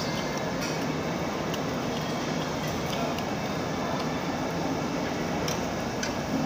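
Steady rushing background noise of a busy Korean barbecue restaurant, with a few light clicks of a metal spoon against a stainless steel bowl.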